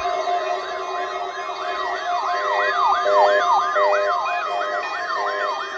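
A siren yelping in quick up-and-down sweeps, about three a second, layered over a steady alert tone and intermittent beeping alarms.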